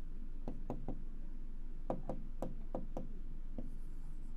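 Pen tip knocking against the glass of an interactive display board while writing: about nine light, sharp taps in uneven clusters, over a low steady hum.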